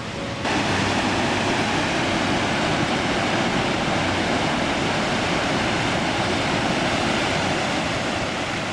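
Waterfall rushing: a steady roar of falling water that cuts in about half a second in.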